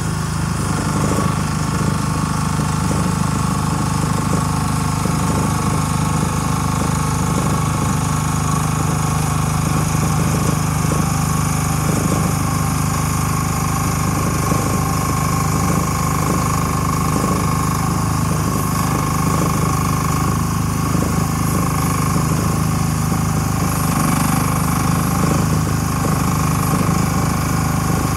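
Small engine of a JPC PC10 mini excavator running steadily at an even pitch while the machine travels on its tracks.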